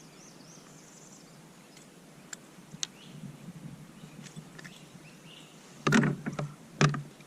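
Quiet river ambience with a few faint bird chirps, then two short, loud thumps about six and seven seconds in.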